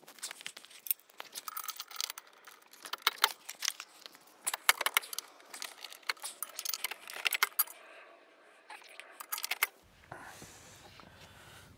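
Metal hardware clinking and jingling: bolts, washers and hand tools handled while a jacking rail is fitted under a car, as a run of irregular sharp clinks. The clinks stop about ten seconds in, and a faint low hum follows.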